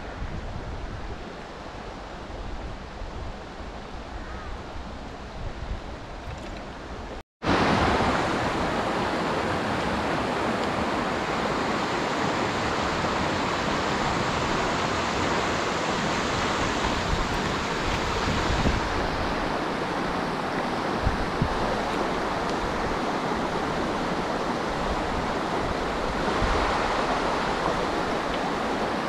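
Steady rush of river water running over rocks. It cuts out for a moment about seven seconds in, then comes back louder and brighter.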